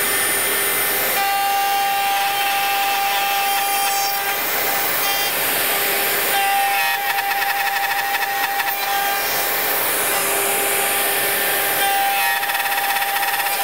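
Bosch GOF 1250 CE router running at full speed, cutting box-joint fingers through a jointing-jig template and removing a lot of material. Its cutting sound changes as it moves along the cut.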